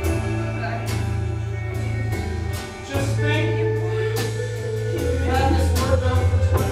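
Music with a heavy bass line, drum hits and a singing voice.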